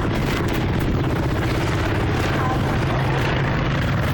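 Steady low rumble of an idling vehicle engine and traffic, with rubbing and handling noise from a phone being moved around.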